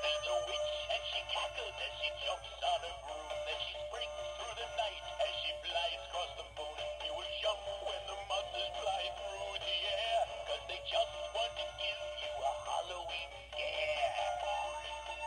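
Avon animated plush bat-on-skull toy playing its song through its small built-in speaker: an electronic tune with a synthetic-sounding sung voice, thin and without bass.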